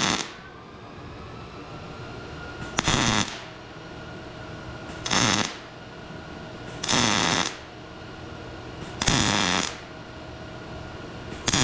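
MIG welder arc crackling in short bursts of about half a second, roughly every two seconds: a row of spot-weld dots laid one at a time along a line. A faint steady hum runs between the bursts.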